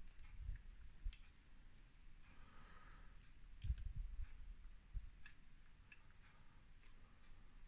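Faint, irregular clicks and light knocks from handling the motorcycle's handlebar switches and wiring while its lights and indicators are tested.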